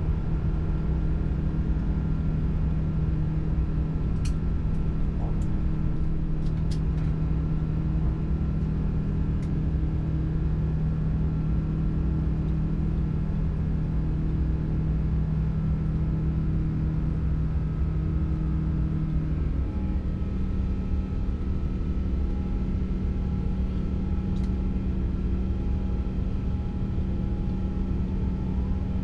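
Airbus A350 cabin noise during the climb after takeoff: the steady drone of the Rolls-Royce Trent XWB engines and rushing air, heard inside the cabin. Its low hum shifts up a step in pitch about two-thirds of the way through, and a few faint ticks sound early on and near the end.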